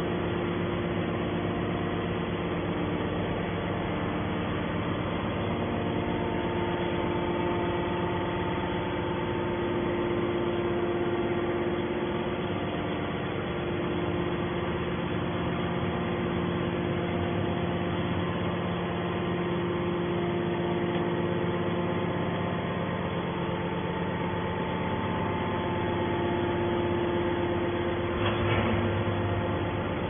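Hydraulic scrap-metal baler's power unit, its electric motor and pump running with a steady hum that shifts slightly in pitch now and then. A brief knock sounds near the end.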